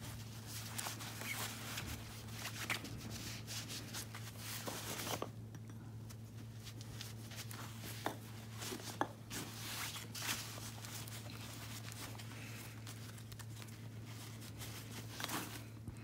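Hands working three-strand synthetic rope into an eye splice: irregular rustling, creaking and small clicks as the strands are twisted and tucked through the lay, over a steady low hum.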